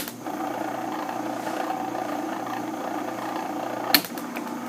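Craftsman utility sharpener's small electric motor running steadily with a hum, its wheel turning; a sharp click about four seconds in.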